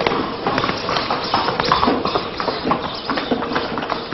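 Hard footsteps on stone steps and paving: a quick, irregular run of sharp clicks and knocks.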